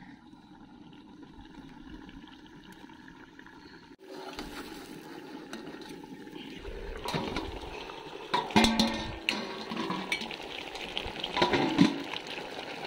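Steel plate lid clanking and scraping against the iron kadhai as it is lifted off the covered chicken, with two loud metallic knocks that ring briefly, over the watery hiss of the chicken cooking underneath.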